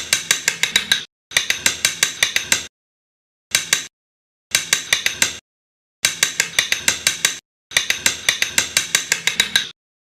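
Rapid, sharp clicking, about seven clicks a second, in six short bursts that break off abruptly into silence between them: a hand tool working on a carved wooden model.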